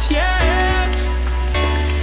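Background music: an electronic pop track with a sliding melodic line over a sustained low bass that changes note twice.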